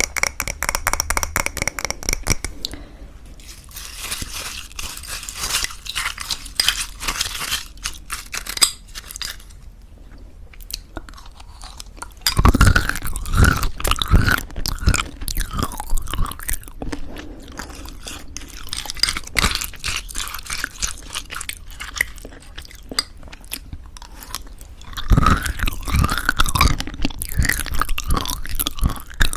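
Close-miked eating of thick yogurt with crunchy homemade granola: chewing and crunching, louder in two bouts, one partway through and one near the end. It opens with a quick run of clicks.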